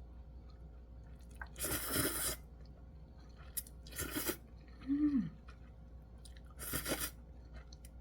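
Close-miked eating of beef ramyeon: three loud noodle slurps spaced a couple of seconds apart, with chewing between them. There is a brief low hum of the eater's voice about five seconds in.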